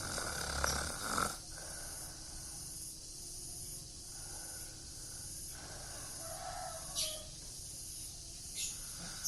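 A man snoring in his sleep: a loud snore in the first second or so, then softer snoring breaths every couple of seconds.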